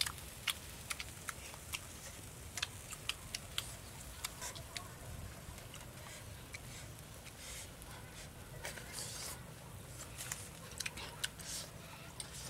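Close-up eating sounds: scattered sharp clicks and smacks as bamboo sticks pick grilled meat off a stone slab and the meat is chewed.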